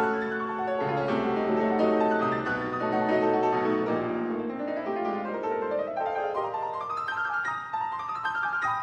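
Background music played on a solo piano, with a rising run of notes near the end.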